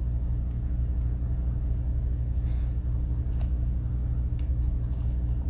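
Steady low hum with no change in pitch or level, and a few faint clicks about three and a half, four and a half and five seconds in.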